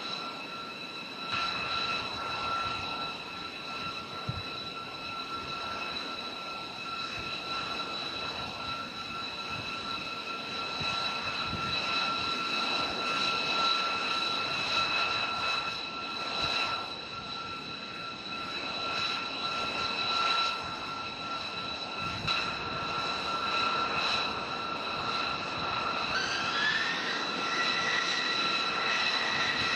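Jet turbine noise from a B-2 Spirit's General Electric F118 turbofans running on the flight line: a steady high whine over a broad rush. Near the end a further tone rises in pitch as an engine spools up.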